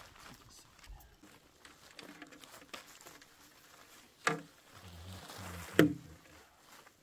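Nylon gill net being pulled by hand and piled into a plastic crate, its mesh and rope rustling over a plastic tarp in light, scattered patters. Two short, louder sounds stand out about four and six seconds in.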